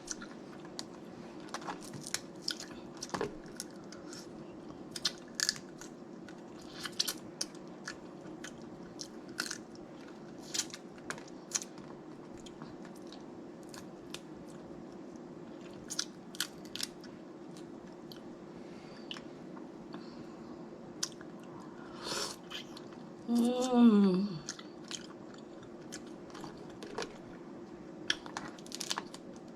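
Close-up chewing and biting of snow crab legs, with frequent small sharp clicks and crunches from the shell and meat. About two-thirds of the way through comes a short hummed sound from the eater, falling in pitch.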